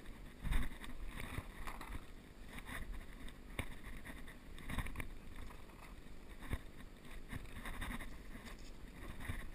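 Footsteps crunching and swishing through leaf litter and brush, roughly one or two steps a second, under a low wind rumble on the microphone.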